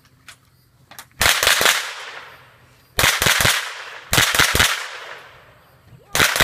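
Semi-automatic rifle fire in four quick strings of three or four shots each, about a second and a half apart, each string trailing off in a short echo.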